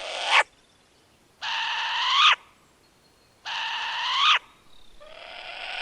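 Short-eared owl screeching: repeated calls under a second long, about two seconds apart, each shooting up in pitch and growing louder towards its end.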